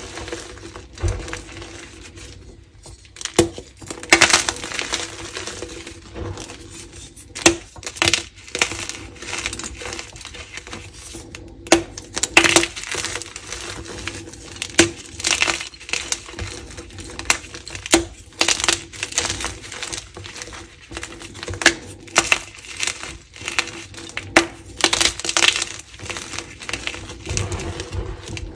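Gym chalk blocks being crushed and crumbled by hand in a heap of chalk powder and broken pieces: irregular crisp crunches and snaps with soft crumbling in between.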